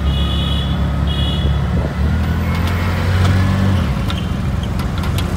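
Auto-rickshaw engine running in city traffic, heard from inside the open cab, its low note steadying and strengthening for a couple of seconds in the middle before dropping back. Two short high-pitched horn beeps sound in the first second and a half.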